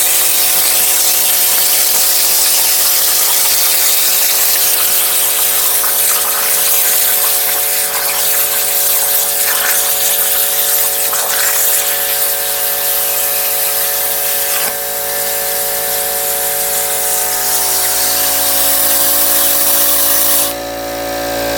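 Plasma cutter torch on a Langmuir Systems CNC table cutting metal: a loud, steady hiss with a hum of steady tones underneath. Near the end the hiss cuts off suddenly as the arc stops, leaving the hum.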